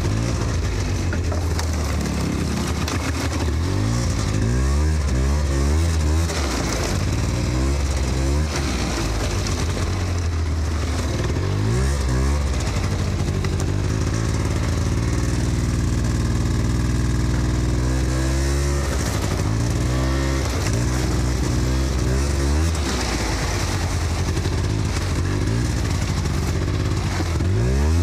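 Polaris ATV engine running under way, its pitch repeatedly rising and falling as the throttle is opened and eased off, with rattling throughout.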